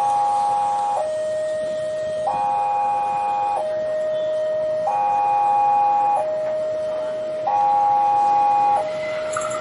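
Electronic two-tone alarm alternating between a higher and a lower tone, each held about 1.3 seconds, repeating steadily.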